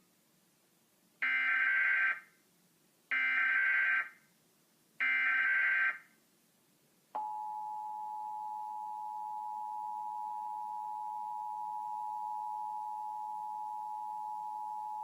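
Emergency Alert System alert: three short bursts of SAME header data about a second apart, then the steady two-tone EAS attention signal held for about eight seconds and cut off sharply. The sequence marks the start of the National Periodic Test message.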